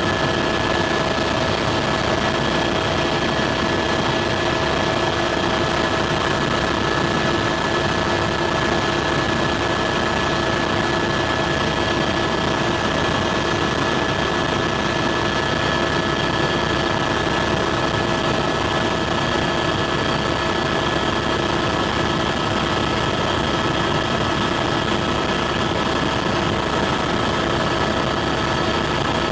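Helicopter in level flight heard from inside the cabin: a steady, dense rush of engine and rotor noise with several constant whining tones on top.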